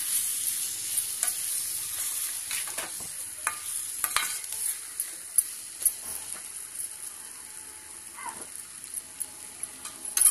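Spiny gourd curry with ground peanut paste sizzling in a stainless steel pot while a metal spoon stirs it, scraping and knocking against the pot now and then. The sizzle slowly dies down as the paste is mixed through.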